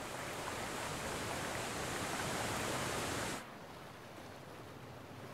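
Steady rushing of water, an even hiss, that cuts off suddenly about three and a half seconds in to a quieter, steady wash of noise.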